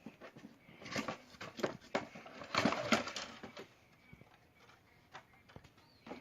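A toy's cardboard box and packaging being opened by hand: crinkling, tearing and a string of small knocks and clicks, busiest in the first few seconds and quieter after that.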